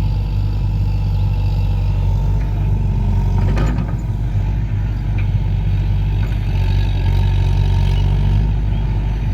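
Excavator's diesel engine running steadily, with a short clatter about three and a half seconds in.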